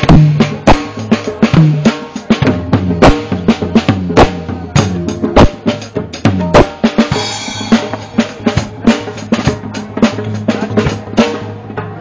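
Drums played live in a stage sound check: a fast run of strikes, some with low pitched booms. A cymbal wash comes about seven seconds in, and the playing thins out near the end.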